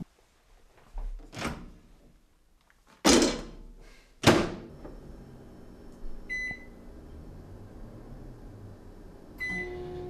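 Emerson microwave oven door opened with a clunk and, just over a second later, shut with a loud sharp clunk. Later come two short keypad beeps, about three seconds apart.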